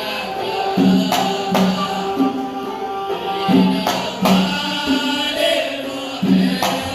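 Yemeni sawt folk song performed live: a singing voice holding long notes over a hand drum beating an uneven, repeating rhythm.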